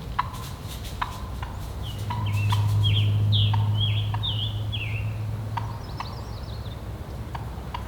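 Footsteps crunching through dry leaf litter at a walking pace, with a run of about eight quick falling bird calls in the middle and fainter high chirps just after.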